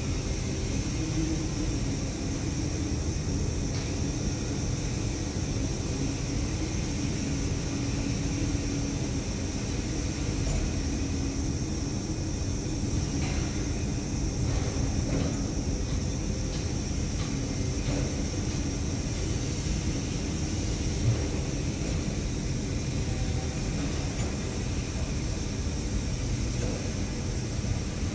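Potain MD569 tower crane running as it swings a hanging steel beam: a steady low mechanical rumble with a hum that fades out about halfway through. A few faint clicks come midway.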